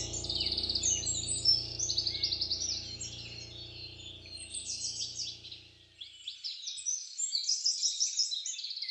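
Birds chirping and trilling rapidly, many calls overlapping, over soft sustained background music that fades out about six seconds in, leaving the birdsong alone.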